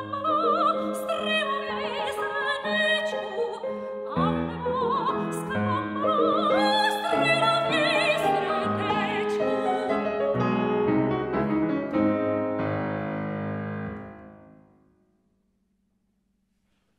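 Operatic soprano singing a song with vibrato, accompanied on a grand piano. The song ends about fourteen seconds in, the last sung note and piano chord dying away.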